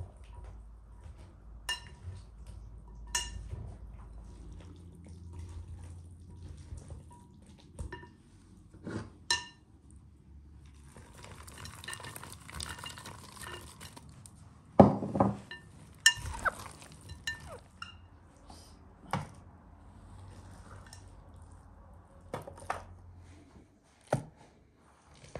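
Metal spoon and silicone spatula scraping and clinking against a glass mixing bowl while stirring a thick chocolate-and-biscuit mixture. Scattered sharp clinks ring briefly, with a heavier knock about halfway through.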